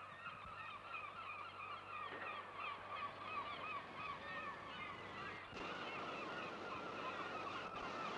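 A flock of gulls calling over one another: many short, repeated calls overlapping into a continuous chatter. About five and a half seconds in, the background hiss steps up while the calling carries on.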